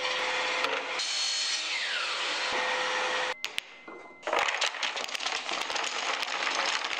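Compound miter saw running as it cuts small poplar wedges, a steady machine noise with a held motor note that cuts off about three seconds in. From about four seconds in, a crateful of small cut wooden wedges tumbles out of a plastic crate and clatters onto the worktable.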